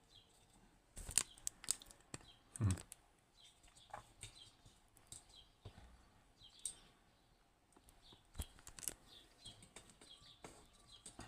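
Scattered short clicks and taps of small metal lock parts, the levers and housing of a disassembled lever lock, being handled and set down at irregular intervals.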